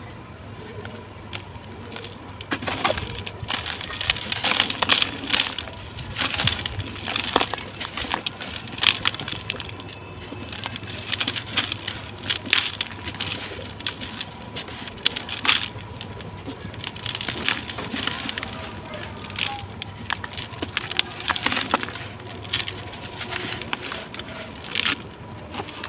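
Dry red sand-cement blocks being crumbled, a long run of gritty crunching and crackling with irregular sharp cracks as pieces break apart.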